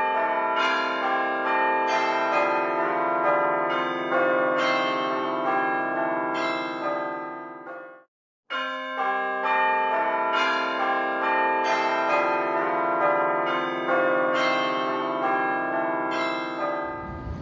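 Church bells ringing a peal, a steady run of overlapping strikes that ring on. The peal stops dead about eight seconds in and starts again half a second later.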